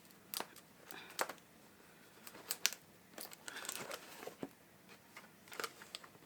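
Packaging of a boxed LED light being handled and pulled open: scattered crinkles, rustles and sharp ticks.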